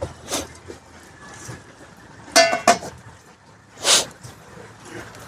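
A few separate clinks and knocks of a utensil against a cooking pot, some with a short metallic ring.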